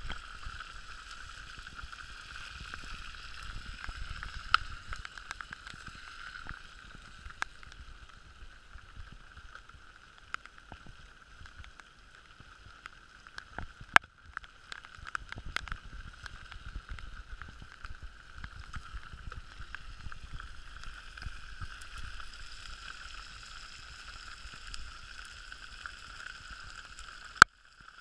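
Venison frying in a cast-iron skillet over a campfire: a steady sizzle with bubbling juices, and scattered small crackles from the fire.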